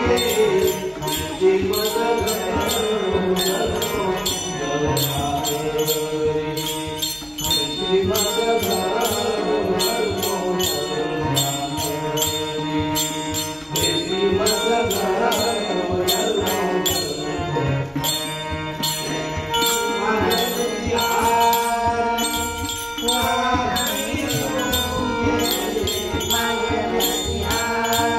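An elderly man singing a Marathi abhang, a devotional song, in a wavering melody. Jingling hand percussion keeps a steady beat under the voice.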